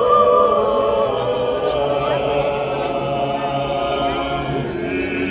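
Orthodox church choir singing unaccompanied, several voices holding long sustained notes of liturgical chant.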